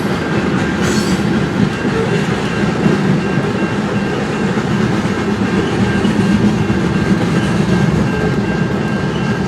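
Mixed freight train's cars rolling steadily past, wheels clattering over the rails with a continuous rumble and a thin steady high tone.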